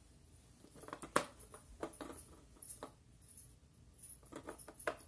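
Batteries being fitted into the plastic battery compartment of a battery-powered Christmas house decoration whose old cells had run flat: a scattered string of sharp clicks and small knocks, the loudest about a second in and another near the end.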